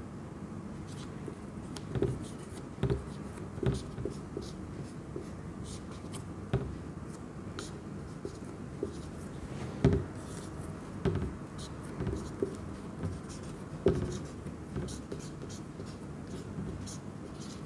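Marker pen writing on a whiteboard: irregular taps and short scratchy strokes as a diagram is drawn, a few taps sharper than the rest.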